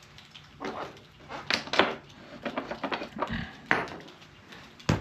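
Scattered metal clinks and clatter from fitting the motorcycle's rear axle nut and handling the tools, a few sharp knocks at irregular intervals with the loudest pair about a second and a half in.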